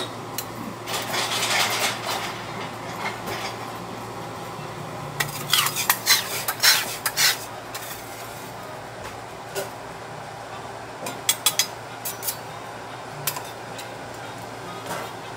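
Metal teppanyaki spatulas scraping and clinking on the steel griddle: a stretch of scraping about a second in, a quick run of scrapes and taps from about five to seven seconds, then scattered clinks later, over a steady low hum.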